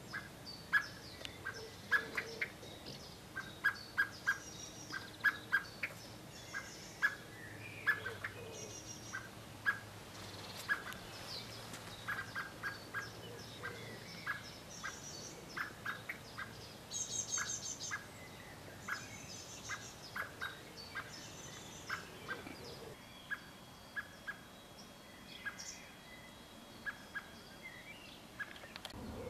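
Garden birds calling: short sharp call notes repeating irregularly, now and then several in a second, with brief high twittering trills now and then and a thin held whistle near the end.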